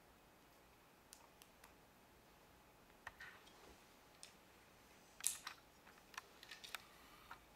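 Lego pieces clicking and tapping as they are handled and pressed together: scattered small sharp clicks, with a louder cluster about five seconds in and several more after it.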